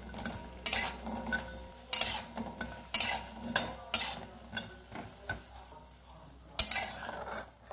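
Dal bori (lentil dumplings) frying in a little oil in a metal wok, turned with a metal spatula: the spatula scrapes the pan about once a second over a quiet sizzle. The strokes pause for a moment, then one more scrape comes near the end.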